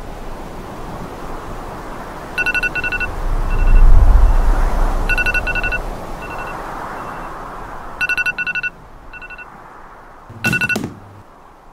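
Smartphone alarm beeping in clusters of quick beeps that repeat every few seconds, with a louder burst near the end before it stops. Underneath runs a steady rushing noise that swells deep and loud about four seconds in.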